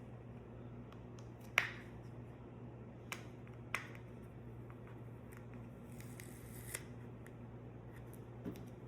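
A few sharp, isolated plastic clicks and taps from handling the small wireless PC power button while prying at its snap-on cover, over a low steady hum.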